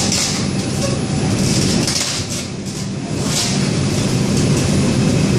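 R142 subway car running through the tunnel, heard from inside the car: a steady rumble of wheels on rail with hiss that swells and fades, easing briefly a little past two seconds in.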